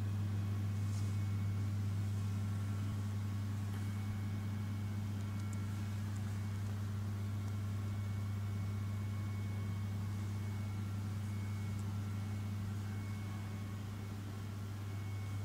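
Steady low electrical hum with a faint higher whine from a CNC milling machine that is switched on but idle, its spindle not running.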